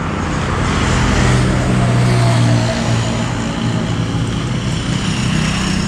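Motorcycle engine running steadily: a low, even hum under a continuous rushing noise.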